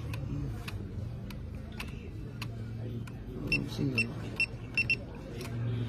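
Short high electronic beeps from a drone remote controller, five in quick succession starting about three and a half seconds in, over a steady low hum, with a few sharp clicks before them.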